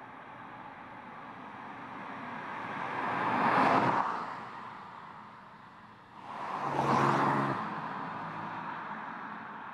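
MINI Cooper Convertible passing by twice. Each pass is a whoosh of tyre and engine noise that swells and fades, about three and a half seconds in and again about seven seconds in. The second pass leaves a low engine hum trailing off.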